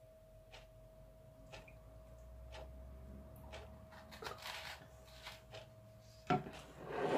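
Quiet kitchen with a faint steady hum and faint ticks about once a second, then a sharp knock a little after six seconds in as the soy sauce bottle is set down on the worktop.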